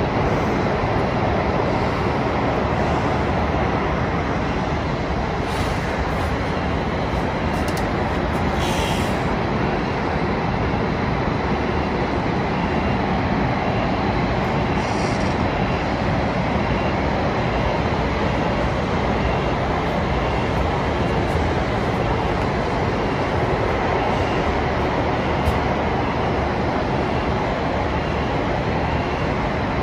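Steady outdoor city background noise: an even rumble and hiss that runs on without a break.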